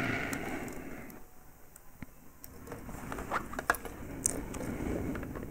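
Faint handling sounds of small metal parts: scattered light clicks and ticks as a coiling jig and coil wire are worked by hand, after a soft hiss that fades over the first second.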